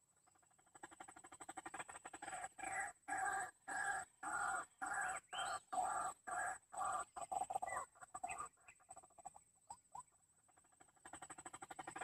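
White-breasted waterhen calls: a run of quick notes that builds into loud, regularly repeated 'wak' calls, tails off into faster, weaker notes, stops about ten seconds in, and starts up again near the end.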